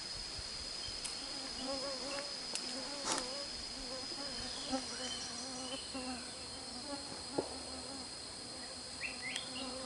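Insects in a tropical forest tree: a steady high-pitched drone, with the lower hum of flying insects wavering in and out. A few short high chirps come near the end.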